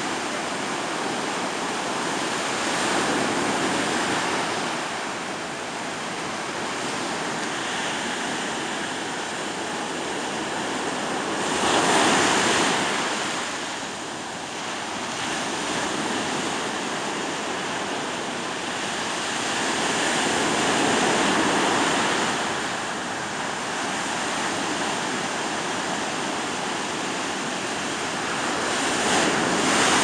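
Rough, stormy sea surf: a continuous wash of breaking waves, with bigger waves crashing about every eight or nine seconds, the loudest a little before the middle.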